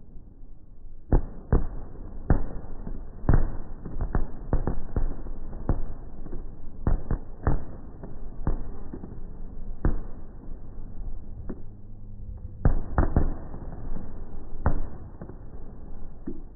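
Aerial fireworks display: about twenty sharp bangs of shells bursting at irregular intervals, some in quick clusters, with a low rumble between them.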